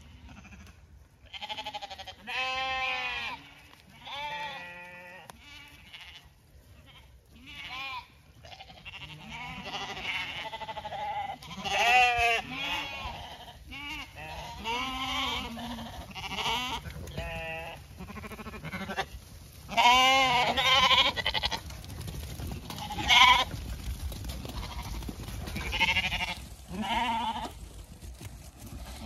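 A flock of Zwartbles lambs bleating over and over, many wavering calls following one another and overlapping, some of them loud.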